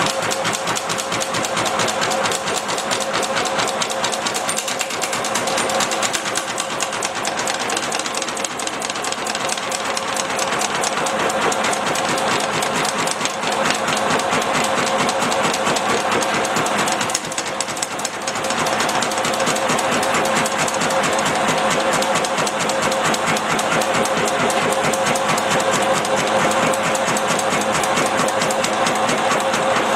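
Erco forming and flanging machine running, its ram hammering rapidly on 14-gauge sheet metal as it turns up a flange on the first pass, over a steady motor hum. The strokes dip briefly about 17 seconds in.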